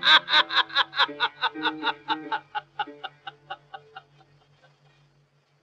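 A woman's voice breaking into rapid, hysterical-sounding laughter, about five bursts a second, fading away over about four seconds, with soft instrument notes underneath.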